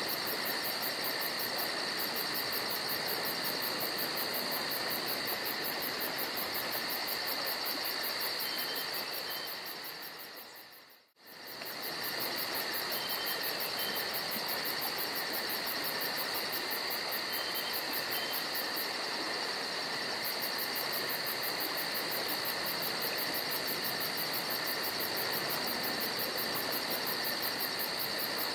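Chorus of crickets or similar insects, steady high-pitched trilling with a fast even pulse, over a steady background hiss. The sound fades out about ten seconds in, drops to silence for a moment, and comes straight back.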